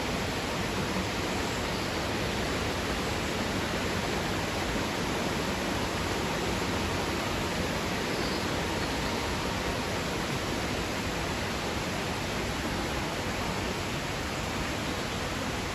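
Steady, even rush of a mountain gorge stream running high after heavy rain.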